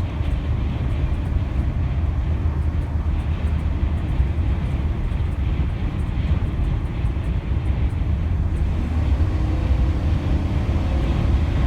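Steady low rumble of road and wind noise inside a moving vehicle's cabin, travelling at about 45 mph on a highway in strong wind.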